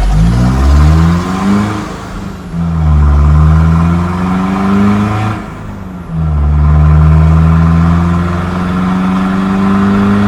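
Mazda BT-50 ute's diesel engine with a stage 1 high-flow turbo accelerating hard through the gears. The pitch climbs steadily, then drops at two gear changes about two and five and a half seconds in, and climbs again after each.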